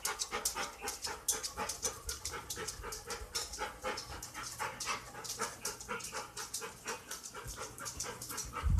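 Dog panting fast and steadily, about five breaths a second: the stress panting of a dog frightened by fireworks. A brief low thump near the end.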